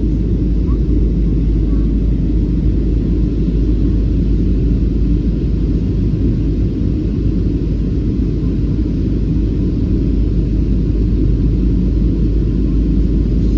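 Steady low rumble of an airliner's engines and rushing air, heard inside the passenger cabin on the descent to land.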